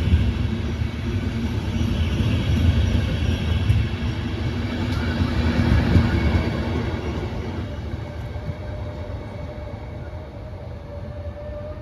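Train running through a station: a heavy rumble of wheels on rail, loud for about seven seconds and then fading, with a steady whine coming in near the end.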